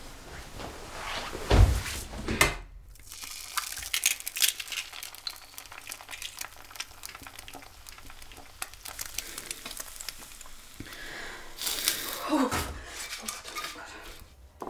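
Eggs frying in a pan, a steady crackling sizzle. Near the start come two sharp knocks about a second apart, and near the end there is a short burst of handling noise.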